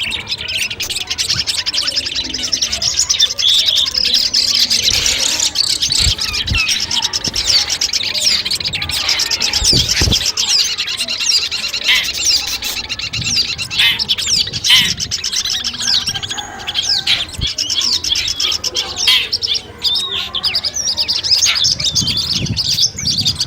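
Long-tailed shrike (cendet) singing a dense, unbroken stream of rapid high chirps, trills and short whistled glides, the kind of song recording used as masteran to train other songbirds. A few low thumps come through about six and ten seconds in.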